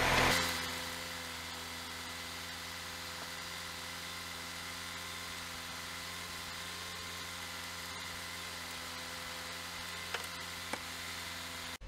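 Saab 9-3 1.8t four-cylinder turbo petrol engine idling steadily at a raised idle while an engine-flush cleaner circulates in its oil. There are two faint clicks about ten seconds in.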